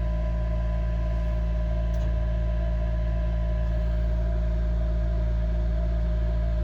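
Steady machine hum with a deep rumble and several constant tones, unchanging throughout, with a couple of faint clicks.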